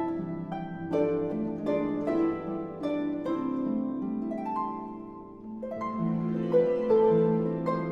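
Harp music: plucked notes and chords ringing over low bass notes, softening briefly about five seconds in, then swelling again.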